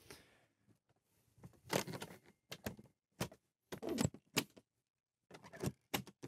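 Hand-operated doors and latches on an Airbus H145 helicopter's rear fuselage: a series of knocks and clicks as the clamshell doors and a side panel latch are handled, with the loudest knock about two seconds in.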